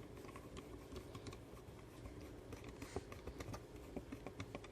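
Faint, irregular small clicks and taps of the plastic video doorbell and its battery panel being handled.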